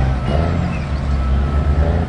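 Diesel engine of a Caterpillar articulated dump truck running steadily, its sound mostly low-pitched.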